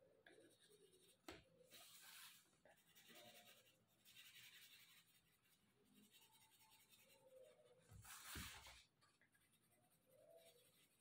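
Faint scratching of a colored pencil shading on paper, coming in several short stretches of strokes, with a sharp click about a second in.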